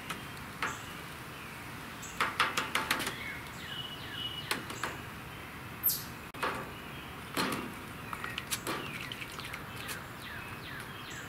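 Light clicks and taps in a few quick clusters as a plastic fly vial and its tubing are handled. Birds chirp in the background.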